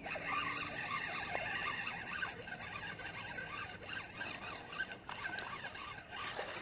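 Spinning reel cranked steadily, its gears whirring as line is wound in on a hooked fish.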